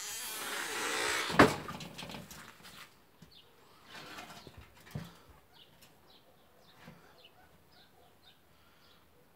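Rustling handling noise for about three seconds with one loud knock about a second and a half in, then a softer knock near the middle. Faint short bird chirps repeat through the second half.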